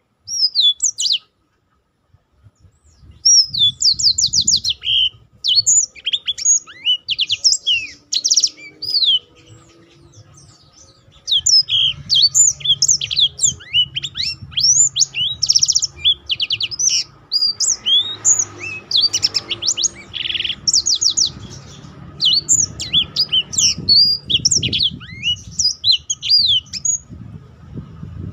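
Black-throated canary singing its fast, tightly packed rolling song of high twittering notes and trills, broken by two short pauses, one about a second in and one about ten seconds in.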